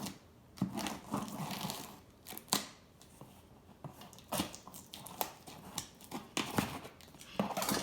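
A cardboard shipping box being cut open with scissors: irregular snips and clicks through the packing tape, mixed with short bursts of tearing and rustling packaging.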